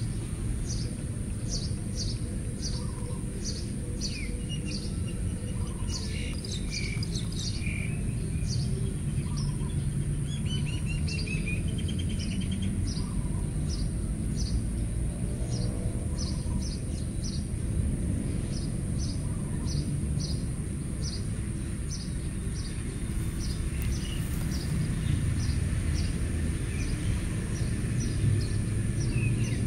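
A bird chirping over and over, about twice a second, with a few other bird phrases in the first half, over a low outdoor rumble and a steady high whine.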